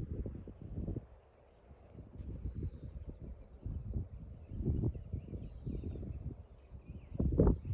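Steady, high-pitched chorus of chirping insects, crickets by their sound, pulsing quickly without a break. Under it come irregular low thumps and rustling, with a louder thump near the end.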